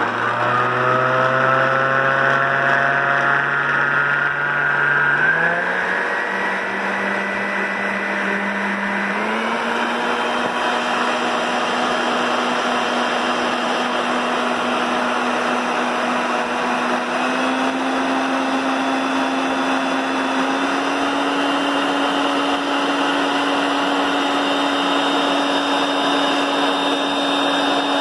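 Cadence Orbit Colors 504 orbital stand mixer running, its motor beating ice cream mix. The motor whine steps up in pitch four times, first about five seconds in, as the speed dial is turned to higher settings.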